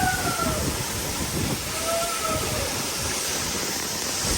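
Steady roar of a large waterfall, with a voice calling out briefly at the start and again about two seconds in.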